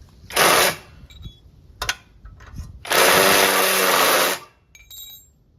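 Cordless impact driver working on a tight bolt: a short burst, then a longer run of about a second and a half with its motor whine over the rapid hammering.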